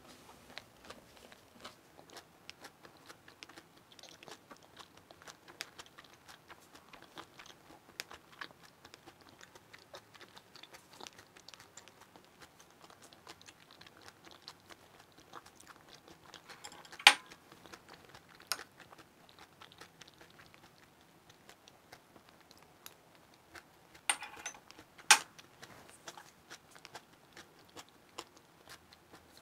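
Close-miked chewing of a mouthful of chive pancake, with soft, faint crunching. A few sharper clicks come about halfway through and again near the end.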